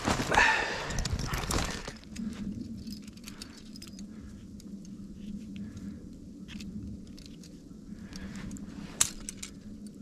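Footsteps and brushing through snow and brush for about two seconds, then light metallic clinks and clicks of a steel wire trap being handled and fitted against a tree, with one sharper click about nine seconds in.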